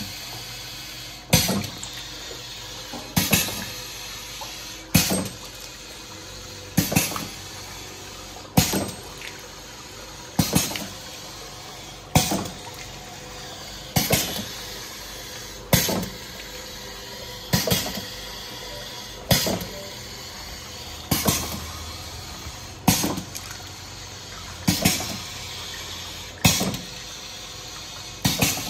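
Pneumatic double-head piston filling machine cycling continuously, filling with water: an even, sharp clack of the air cylinders and valves about every two seconds, each followed by a short hiss and splash as water is dispensed from the two nozzles.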